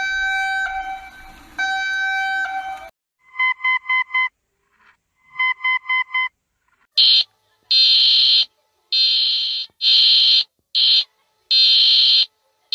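Synthesized Emergency Alert System–style alarm tones. They start as a long held multi-note tone, change to two quick runs of about four short beeps each, then to a series of loud, high-pitched tones of uneven length.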